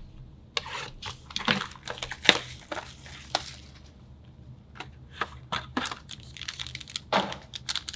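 A sealed cardboard trading-card box being handled and opened: a few seconds of rustling and scraping, then scattered taps, and crinkling as the foil-wrapped pack is pulled out near the end.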